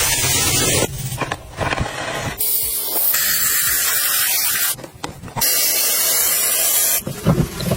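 Pressure washer spraying water in three bursts of loud, even hiss, each cutting off abruptly with quieter gaps between.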